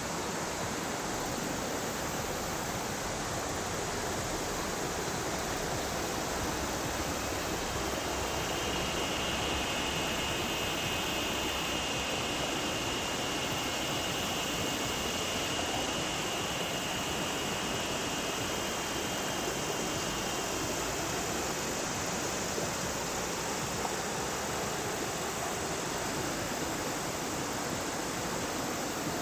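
Yellow River water flowing in a steady rush. A faint thin high tone joins it about eight seconds in and fades out about twelve seconds later.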